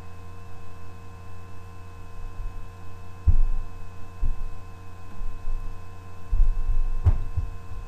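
Steady low electrical hum with no speech over it. A few dull low thumps break in, one about three seconds in and a short cluster near the end that includes one sharper knock.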